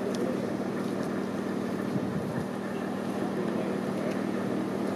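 Boat engine running steadily, a constant low drone with a held tone under water and wind noise.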